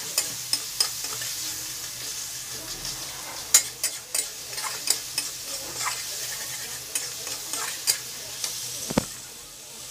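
Onion-tomato masala sizzling in oil in a steel kadhai on a low flame while a metal spatula stirs it, with irregular clicks and scrapes of the spatula against the pan. The sizzle eases near the end, with a dull knock just before.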